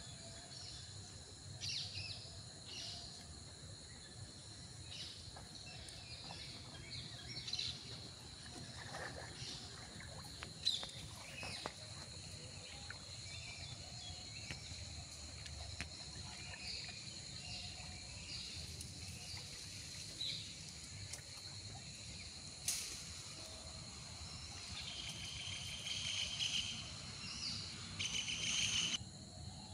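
Outdoor ambience of insects droning steadily in a high pitch, with scattered bird chirps and calls. One sharp click comes a little past the middle, and a louder run of chirping comes near the end.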